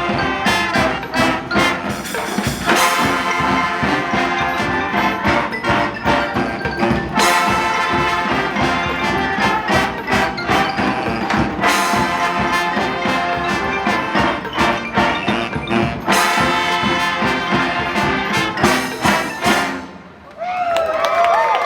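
Brass street band (trumpets, trombones and drums) playing an Afro-jazz tune, with big ensemble hits every four or five seconds. The music stops near the end and cheering voices start.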